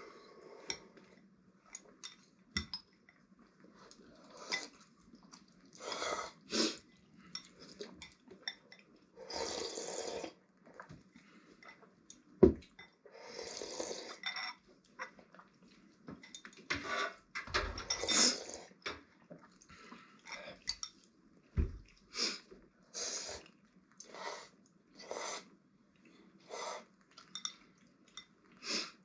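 People slurping instant noodles and broth from bowls with chopsticks: a string of separate slurps, each up to about a second long, with a few sharp knocks of chopsticks on the bowls, the loudest about twelve seconds in.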